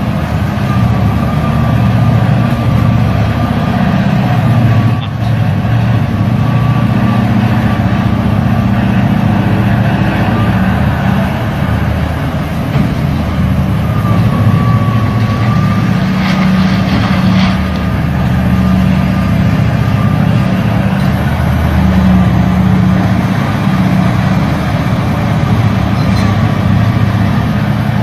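Diesel engine of a giant mining excavator running steadily: a deep continuous drone with a thin steady whine above it, and a short burst of hiss about two-thirds of the way in.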